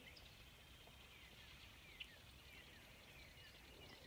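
Faint bird calls: short falling chirps repeated every half second or so, over a faint, rapid, steady high trill that sets in about a second and a half in.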